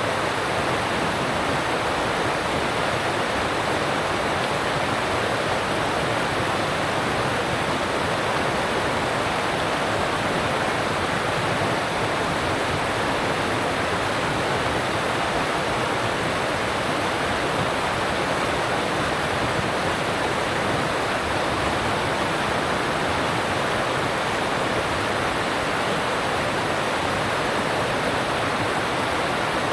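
Alpine stream rushing over rocks: a steady, even rush of water with no breaks.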